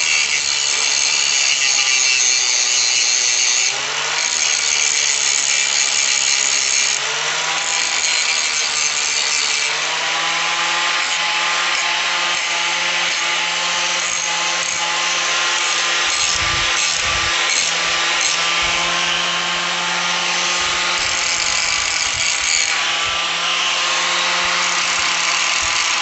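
Power tool cutting through a metal bracket: a loud, continuous grinding hiss over a motor hum whose pitch drops and rises several times as the load changes.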